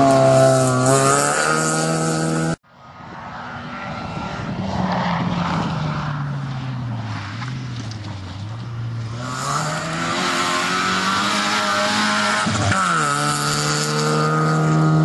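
Rally car engines at full throttle. One car's engine runs until an abrupt break about two and a half seconds in. Then another rally car is heard approaching from a distance, its engine note rising and dropping repeatedly as it accelerates and shifts, growing loud as it passes close near the end.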